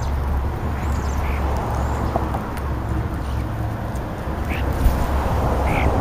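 European starlings squawking and chirping in short, harsh calls as they feed at close range, a few scattered calls over a steady low rumble.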